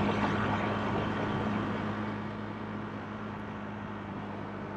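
A moving vehicle driving along a road: a steady low engine hum under road noise, louder in the first second or so and then easing off.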